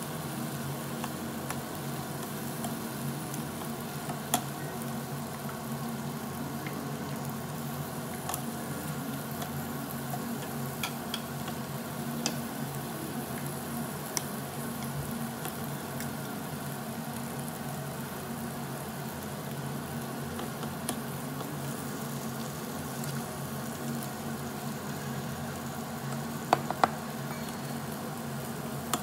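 Marinated duck meat sizzling steadily on a hot grill plate over a steady low hum, with a few sharp clicks, two close together near the end.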